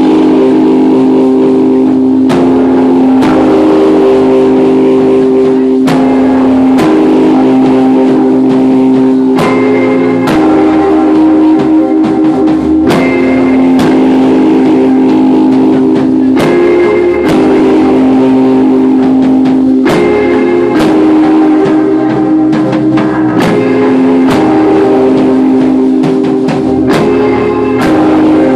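Live rock band playing loud: electric guitars and bass hold ringing notes that change every few seconds, over drums hitting about once a second.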